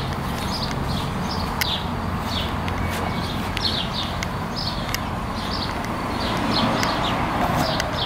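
Small birds chirping repeatedly, short high chirps coming two or three a second, over a steady outdoor background noise with a few sharp ticks.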